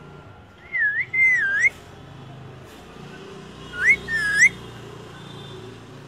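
Indian ringneck parakeet whistling two short warbling phrases, one about a second in and another about four seconds in, each a couple of notes that waver up and down in pitch.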